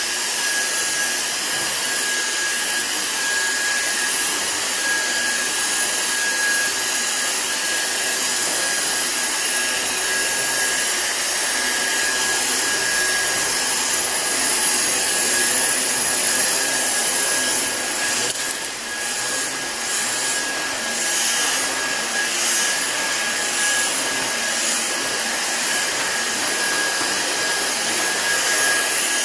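Cordless Dyson stick vacuum running at a steady pitch while being pushed back and forth over a rug: a rush of air with a steady high whine on top.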